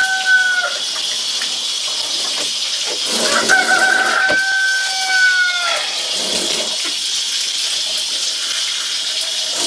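A rooster crowing twice: one crow ends just after the start, and a second long crow comes about three and a half seconds in. Under it is the steady hiss of tap water running into a sink.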